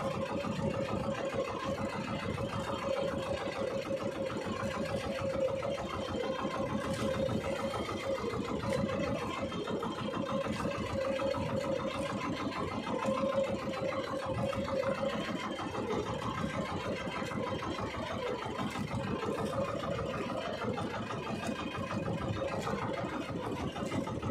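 Small fishing boat's engine running steadily at an even pitch.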